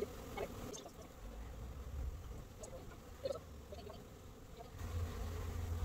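Honeybees humming over an opened hive while a wooden frame is lifted out, with light clicks and rustles from the frame and gloves. A low rumble comes in about five seconds in.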